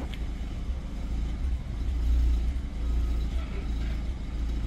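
Outdoor background noise: a low, uneven rumble with a faint hiss above it.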